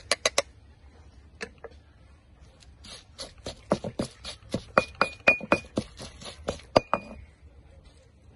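Pestle pounding chili paste in a stone mortar. A few quick knocks at the start, then steady pounding at about four strikes a second from about three seconds in until about seven seconds, several strikes giving a short ringing clink.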